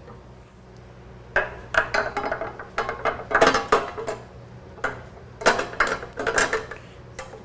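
Clicks and clatter of hard plastic and metal parts being handled as the motorcycle's ECM (engine control module) is fitted onto its four mounting studs on the battery box. The clatter comes in two flurries, starting about a second and a half in, with a short lull in the middle.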